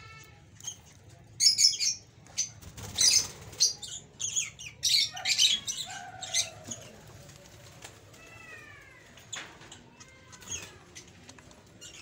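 Lovebirds at a nest box: a rapid run of short, shrill chirps and squawks for the first several seconds, then a few falling calls about two thirds of the way in, and quieter after that.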